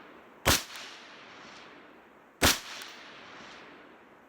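Two rifle shots from a Mk12 Mod1 clone in 5.56 mm, about two seconds apart. Each is a sharp crack followed by a long, fading echo.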